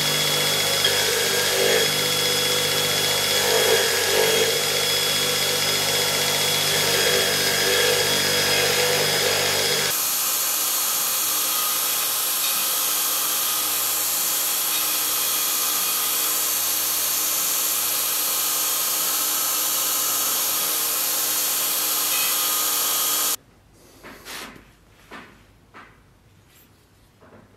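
An electric power tool runs steadily. Its sound changes abruptly about ten seconds in and cuts off suddenly near the end, followed by a few light knocks.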